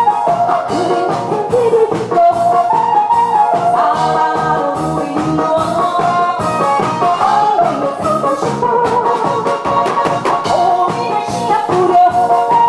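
A woman singing into a handheld microphone over musical accompaniment with a steady beat.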